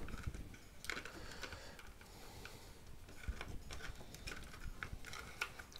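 Scattered faint clicks and knocks from hands handling a small plastic project box and the wiring inside it.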